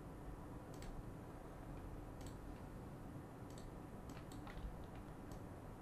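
Faint, scattered clicks of a computer mouse, a few seconds apart, over a low background hum.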